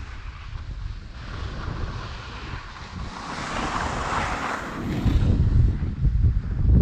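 Wind buffeting the microphone of a camera carried on a moving snowboarder, with the hiss of a snowboard sliding and scraping over snow through the middle. The low wind rumble grows much louder about five seconds in.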